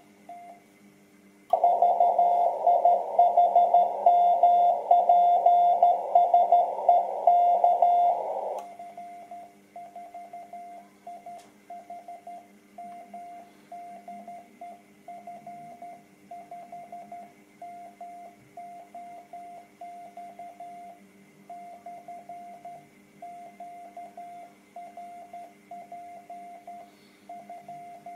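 Morse code (CW) tone of about 700 Hz from an amateur radio transceiver on the 30 m band. It is keyed loud through receiver hiss from about a second and a half in to about eight seconds. After that it comes quieter and without hiss, the station's own CW sidetone while transmitting.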